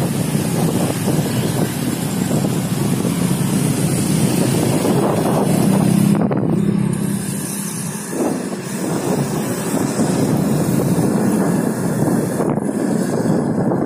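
Wind buffeting the microphone of a moving vehicle, over the noise of an engine and dense road traffic. The wind noise eases briefly about eight seconds in.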